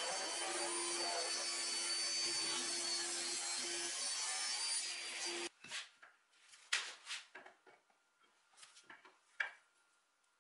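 Sliding-table saw's circular blade ripping a length of wood, a steady cutting noise with a high whine, which cuts off suddenly about five and a half seconds in. After it, a few light knocks and taps as wooden frame pieces and a steel square are handled on a bench.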